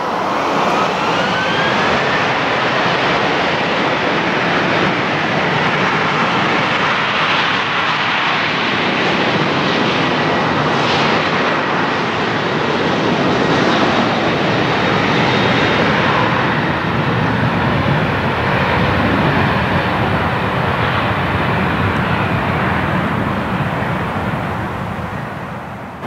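Jet airliner engines running loud and steady, with a rising whine in the first couple of seconds and the noise easing off near the end.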